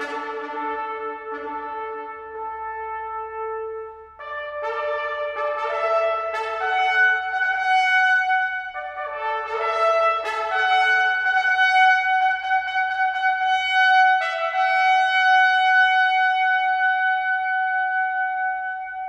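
Trumpets playing a slow passage in several parts, with sustained notes moving through a series of chords. The passage settles on a long held chord over the last few seconds.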